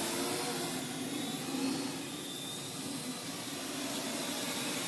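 Parrot AR.Drone quadcopter's four electric rotors buzzing steadily in flight, with wind noise.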